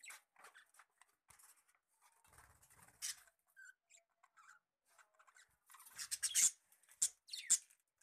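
Budgerigars giving quiet, short high chirps and chatter on and off, growing denser and louder about six seconds in.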